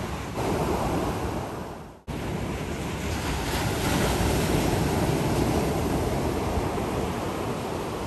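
Pacific Ocean surf breaking and washing onto the beach, with wind buffeting the microphone. The sound dips out briefly about two seconds in, then comes back and swells.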